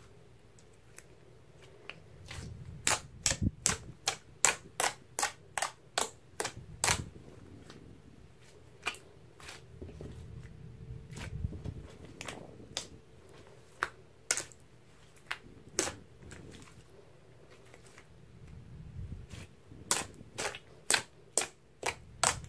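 Fingers poking into and working a thick slime, making sharp pops and clicks in quick runs, several a second, with quieter gaps of soft squishing between.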